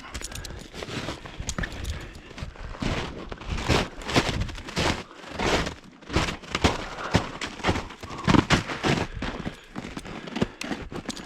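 Footsteps crunching through the woods: an irregular run of crunches, snaps and crackles with no steady beat.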